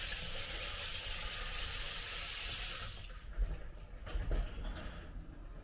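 Kitchen tap running into a sink while hands are washed, turned off about three seconds in; a few soft knocks follow.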